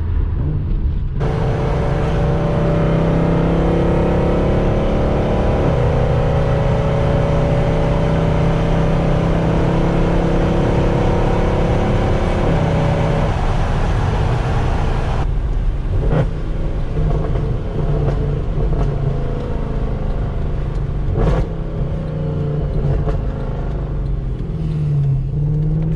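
Mercedes C63 AMG V8 with catless long-tube headers, resonator delete and X-pipe, running at low rpm under light throttle with a steady, deep exhaust note. The pitch steps slightly a few seconds in and again about halfway, and two sharp cracks come later on.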